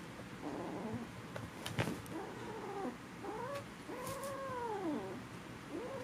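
Kittens wrestling and giving a string of drawn-out, wavering yowls, each rising and falling in pitch, the longest about a second long. A sharp click sounds just before the second call.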